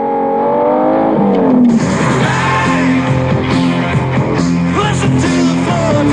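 Music: a swelling, pitched tone that slides down about a second and a half in, then a full rock-style backing with a steady beat.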